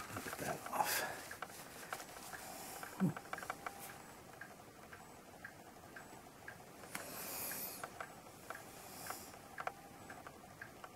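Faint small clicks, taps and scrapes of metal tweezers and a wooden toothpick being handled on a desk and against a plastic cap holding white glue, with a soft hiss about seven seconds in.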